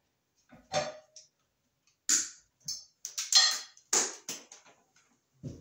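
Wire strippers clicking and snapping as insulation is stripped from electrical wires: several separate sharp clicks with short rustles between, and a dull knock near the end.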